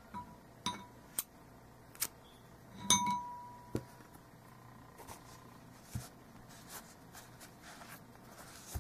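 Light clicks and taps from handling yarn and a crochet hook on a tabletop while changing to a new ball of yarn. About three seconds in, one metallic clink rings on for a couple of seconds.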